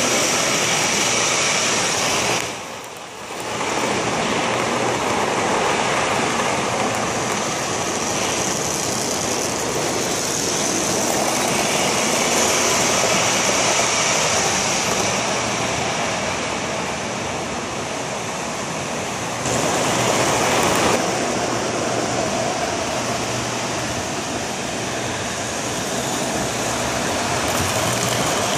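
O gauge model trains running on the layout's track: a steady noise of wheels rolling on rails. It drops away briefly about three seconds in and grows a little louder for a moment about two-thirds of the way through.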